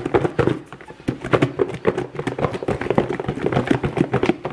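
Raw chicken wings being shaken in a lidded clear plastic container to coat them in dry seasoning: rapid, irregular knocking and rattling of the pieces against the container walls.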